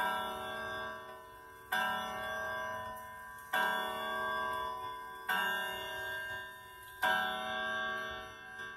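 Hamilton 'Headmaster' schoolhouse regulator wall clock striking the hour on its gong at twelve o'clock: four evenly spaced strikes, each ringing out and fading, the last about seven seconds in.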